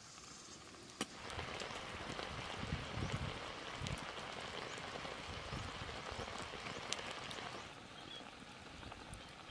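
Grilled fish sizzling and crackling on a grill: a dense crackling hiss that starts sharply after a click about a second in and eases off shortly before the end.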